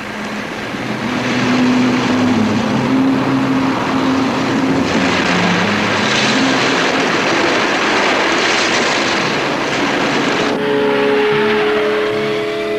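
Storm wind and heavy sea: a steady rushing noise that grows louder about five seconds in, over low held notes of music. The storm noise cuts off suddenly near the end, leaving the music.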